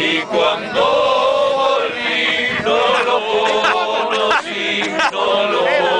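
A group of men singing a zamba together, with long held notes, to a strummed acoustic guitar.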